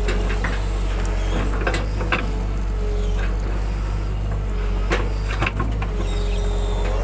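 Excavator's diesel engine running steadily with a wavering hydraulic whine, broken by several sharp knocks of metal on metal.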